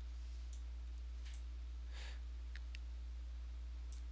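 A few faint, scattered computer mouse clicks over a steady low hum.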